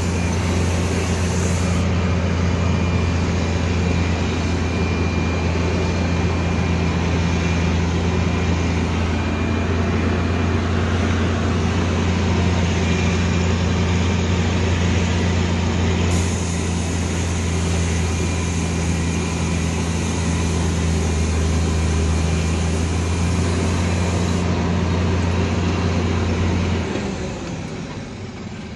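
Diesel engine of a loaded Volkswagen 24.250 truck running hard at steady, high revs for a long stretch, labouring to pull the bogged-down truck free. Near the end it eases off and the sound drops.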